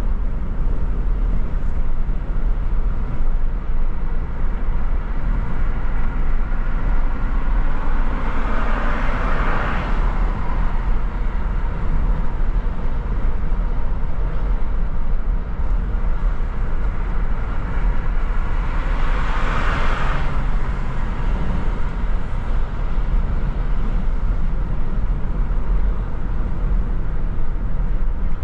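Steady low road rumble of a car driving through city streets, with two passing vehicles swishing by, about nine and twenty seconds in.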